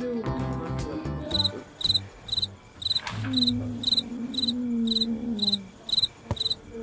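Cricket chirping sound effect: short, high, pulsed chirps about twice a second, starting about a second and a half in after a bit of music ends. A low drawn-out tone sounds under the chirps in the middle.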